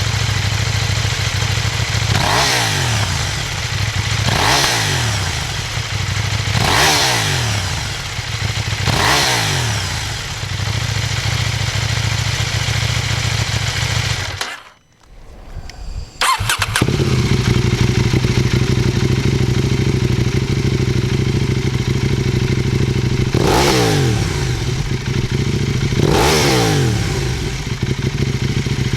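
KTM 790 Duke's parallel-twin engine idling, with quick throttle blips every two seconds or so, each rev falling back to idle. The sound drops out for about two seconds about halfway through, then the idle and blips go on.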